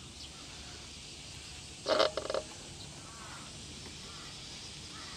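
A single short, harsh animal call about two seconds in, over a faint steady outdoor background.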